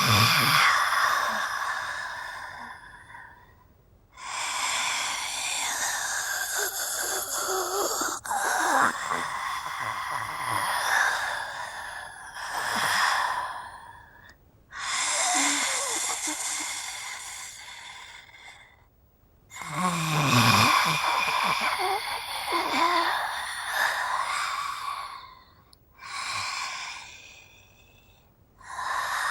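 Female zombie voice sound effects: a series of about six raspy, breathy growls and moans, each a few seconds long, with short pauses between them.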